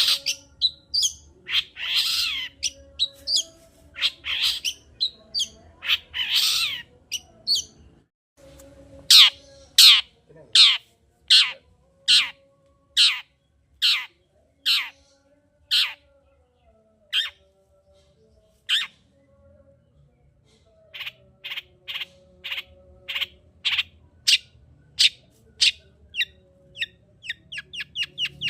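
Long-tailed shrike (cendet) singing: a few harsh, scratchy chatters first, then a long run of sharp, falling notes about one every half-second, sparser in the middle and quicker and shorter near the end.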